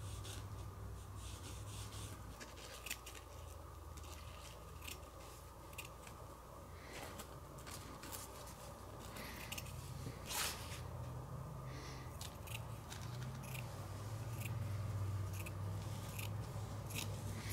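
Scissors snipping through tent fabric in short, irregular cuts.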